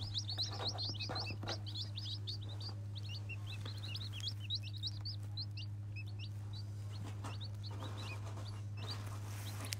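A brood of day-old chicks peeping: many short, high chirps, thick at first and thinning out after about six seconds. These are contented chicks settling to sleep in the warmth, 'little happy chicken noises.' A steady low hum runs underneath.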